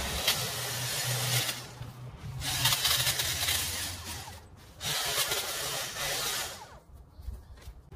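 Long-reach pole hedge trimmer running in three bursts as its blades cut into a shrub, easing off briefly between cuts and quieting near the end.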